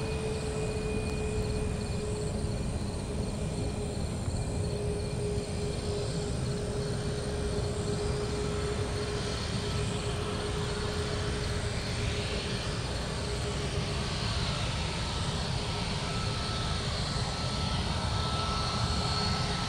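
Boeing 737 MAX's CFM LEAP-1B turbofan engines running at taxi power as the jet taxis close by: a steady jet rumble and hiss with a held whine, and a second, higher whine that comes in about halfway through.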